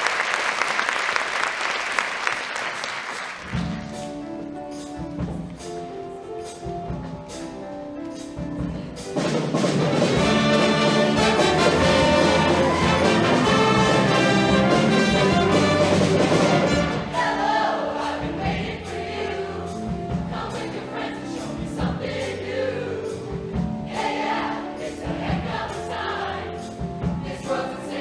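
Audience applause dies away about three seconds in, then a show choir starts singing over instrumental accompaniment. The music swells to its loudest and fullest stretch in the middle, then drops back a little.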